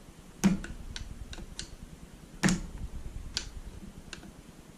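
Bicycle crank and bottom bracket parts being handled and seated: scattered light clicks and ticks, with two louder knocks about half a second and two and a half seconds in.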